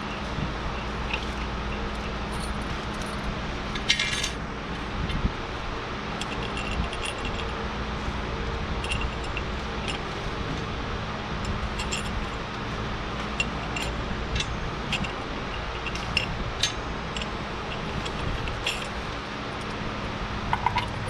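Steel lug fasteners clinking and clicking as they are placed and threaded by hand onto a tractor wheel hub, in scattered light metallic clicks over a steady low hum.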